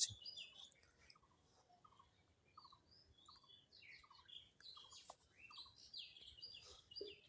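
Faint bird chirps, many short calls scattered over near silence.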